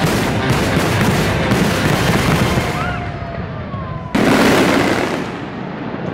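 Aerial fireworks going off in a rapid barrage of loud bangs and crackling, with one big boom about four seconds in.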